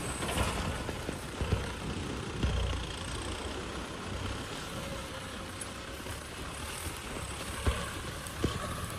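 Kubota M6040 tractor's four-cylinder diesel engine running steadily under load while its front dozer blade pushes soil, with a few short, sharp knocks through it.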